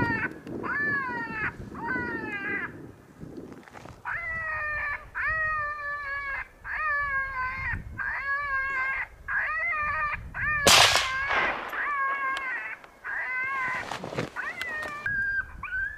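Electronic predator call playing a distress cry that repeats evenly, each wail under a second long, used to lure coyotes. About eleven seconds in comes a single loud rifle shot, the shot that hits the coyote, while the caller keeps going.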